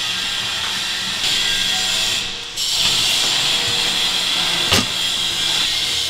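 A steady hiss that steps up in level twice, with one sharp click a little before the five-second mark.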